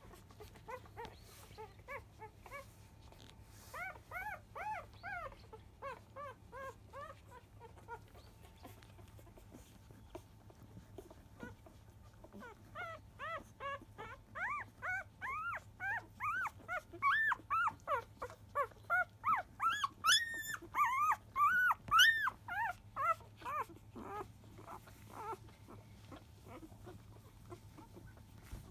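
Newborn (five-day-old) Labrador Retriever puppies squeaking and whimpering while suckling: short, rapid, high squeaks in two bouts, the first a second or so in and a louder, busier one from about twelve seconds, loudest around twenty seconds in.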